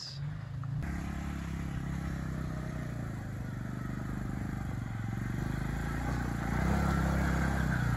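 Off-road truck's engine running steadily on the trail, getting louder near the end.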